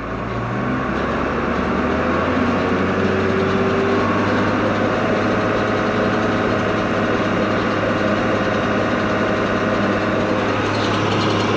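A JCB Fastrac's Cummins diesel engine runs up over the first second or two, then holds a steady drone near full speed while it drives a round baler through the PTO.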